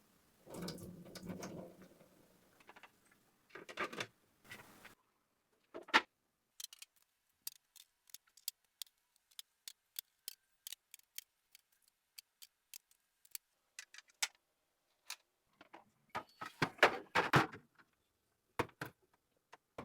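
Plastic kitchen organizers handled at close range: a run of sharp, irregular clicks and taps, one or two a second, with short bursts of rubbing and rustling near the start and a busier cluster of handling noise near the end.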